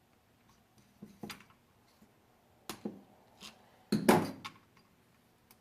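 Handful of sharp clicks and knocks of hand tools against the metal and polymer parts of an AR-15 being worked on to free a stuck takedown pin, the loudest a clattering knock about four seconds in.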